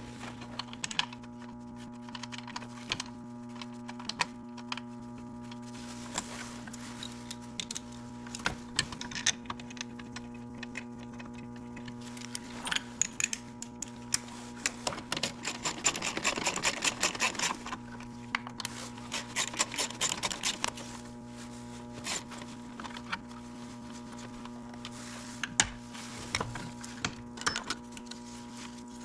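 Hand tools on bolts in a car's engine bay: scattered metal clicks and taps, with two spells of rapid ratchet clicking about halfway through as bolts are run in. A steady low hum sits underneath.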